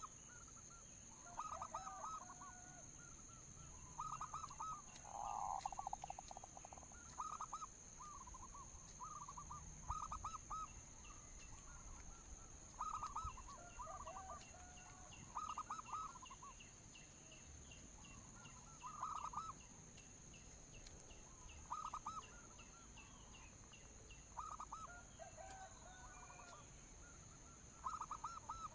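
Zebra doves (perkutut) cooing: short phrases of rapid, stuttering coos repeated every one to three seconds, over a faint steady high-pitched whine.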